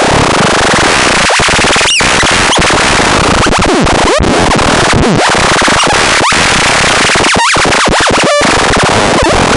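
Loud, harsh buzzing noise, thick with crackles, with a few brief sweeping tones cutting through it.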